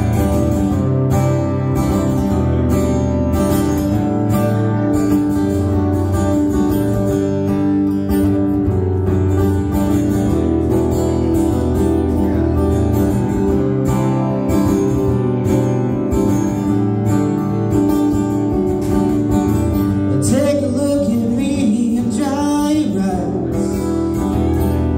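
Two acoustic guitars playing a song together, strumming steady chords. A man's singing voice comes in about twenty seconds in.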